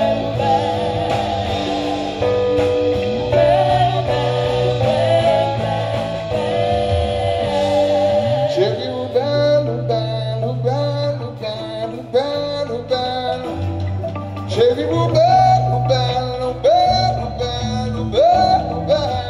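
Live band music with guitar and a sung melody line; a steady beat comes in about eight seconds in.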